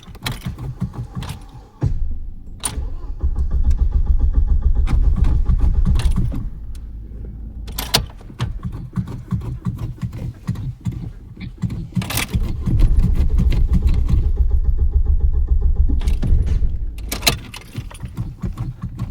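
A car's starter cranking the engine in two long spells of about four seconds each, with a fast, even low pulsing, and the engine not catching: a car that cranks but won't start. Sharp clicks and key jingling come between the attempts.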